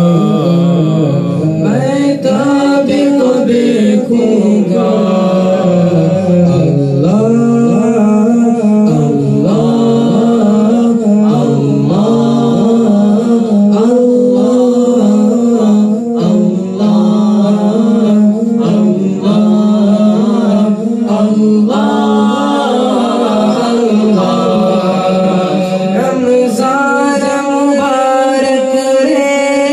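A man singing a devotional naat unaccompanied into a microphone, a continuous melodic line with long held notes.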